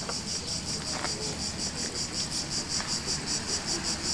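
Insect chirping in a rapid, even pulse, about six chirps a second.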